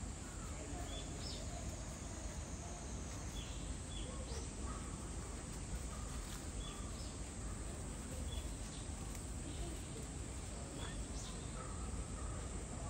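Outdoor ambience: a steady high-pitched insect drone over a low background rumble, with short bird chirps scattered throughout.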